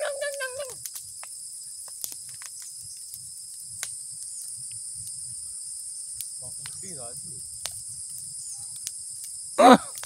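Steady shrill chorus of insects, a high drone in two pitch bands, with scattered sharp crackles from a burning brush pile. A person's voice is heard briefly at the start, faintly about two-thirds through, and loudly once near the end.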